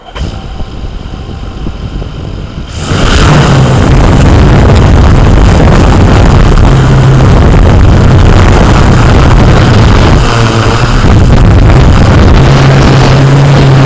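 Quadcopter motors and propellers of a Yuneec Typhoon Q500+ drone starting up, then throttling up loud for take-off about three seconds in. They run on with a steady buzz whose pitch steps up and down.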